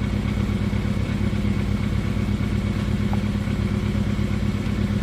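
BMW N20 2.0-litre turbocharged four-cylinder engine running steadily with a fast, even pulsing. Cylinder 2 of this engine has lost compression and misfires.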